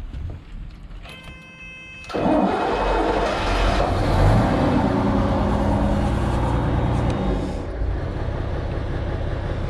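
A barge's keel-cooled inboard engine being started: a brief steady whine, then the engine catches about two seconds in, revs up briefly and settles into a steady rumbling idle.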